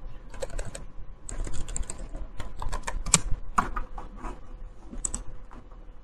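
Computer keyboard being typed on: irregular runs of quick key clicks, with a few single louder clicks between them.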